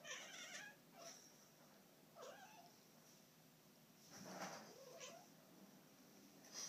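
Cat giving several faint, short meows and breathy calls, a second or two apart.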